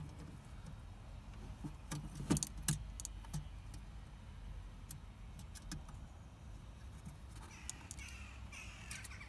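Light plastic-and-metal clicks and rattles as a new H7 dipped-beam bulb and its retaining clip are worked into the back of the headlight housing, loudest in a short cluster about two to three seconds in. Harsh bird calls come in near the end.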